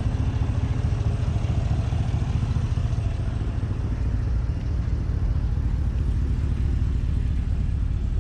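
A 2016 Chevrolet Silverado's engine idling steadily.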